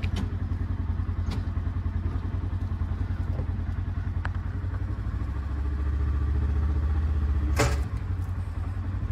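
Engine of a farm vehicle running steadily with a low, pulsing note while it reverses, getting a little louder about five seconds in. A sharp metallic clank sounds once near the end.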